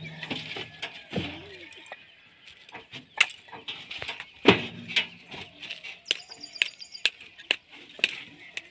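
Fired clay bricks clacking and knocking against one another as they are tossed, caught and stacked into a truck bed: irregular sharp knocks every half second or so, a few much louder. A short run of quick high chirps comes about two-thirds of the way through.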